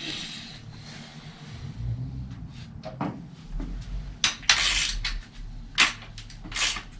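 Metal clinks and short scraping strokes from hands and tools working on a bicycle's rear wheel in a repair stand, with a few louder, sharper strokes in the second half.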